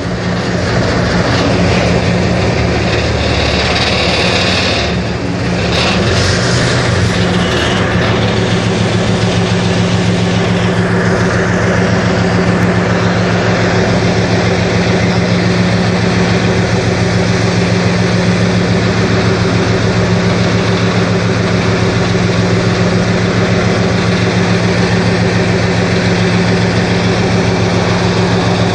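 Cross-river ferry boat's engine running steadily, heard from on board over the rush of water and wind as the boat crosses the river.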